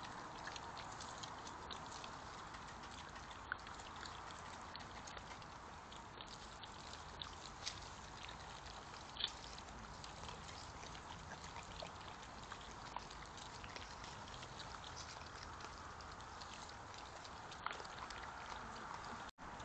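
A group of European badgers feeding in grass: many small crackling clicks of chewing and rooting over a steady hiss, with a few sharper clicks. The sound cuts out for a moment near the end.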